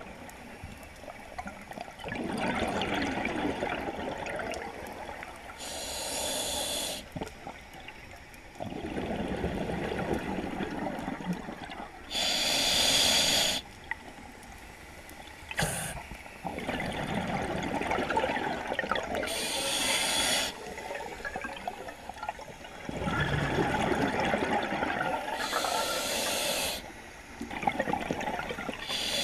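A scuba diver breathing through an open-circuit regulator: a short, sharp hiss of air on each inhale, then a longer bubbling rush as the exhaled air leaves the regulator. The cycle repeats steadily, a breath about every six to seven seconds.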